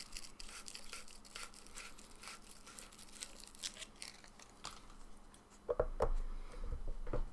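Small plastic parts being handled, with scratchy clicks and crinkling. About six seconds in, a few heavier knocks and creaks as the white plastic blade tube of a homemade lightsaber is forced into its handle.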